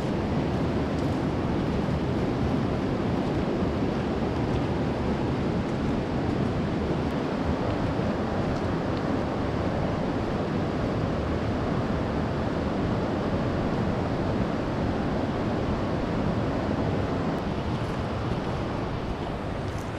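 Steady rushing noise of fast-flowing river water in the gorge, even and unbroken throughout.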